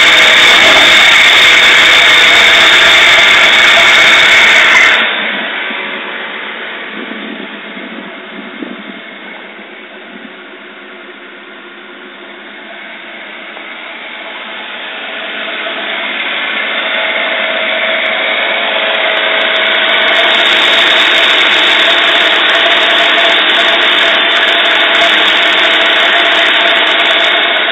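Toyota 2JZ-GTE twin-turbo straight-six idling roughly, a sign of overfueling that the owner later traced to injectors needing service, a faulty O2 sensor and bad spark plugs. The sound drops sharply about five seconds in and builds back up in the second half.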